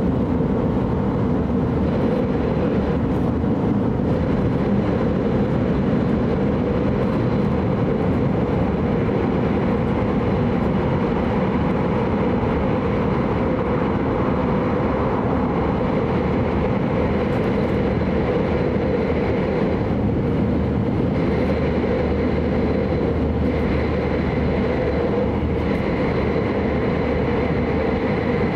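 Steady running noise of an E5 series Shinkansen train, heard from inside the passenger car: an even rushing sound with a faint steady hum.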